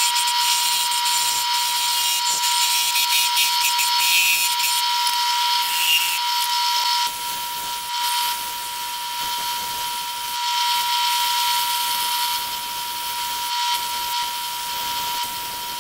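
Wood lathe running with a steady whine as a turned wooden lure blank spins. 220-grit sandpaper pressed against the spinning wood adds a rough hiss. The rubbing gets a little quieter about seven seconds in.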